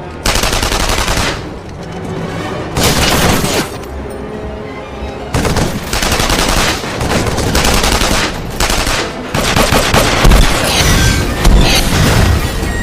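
Repeated bursts of rapid gunfire in a film fight scene, each about a second or two long with short gaps between, over a loud orchestral score.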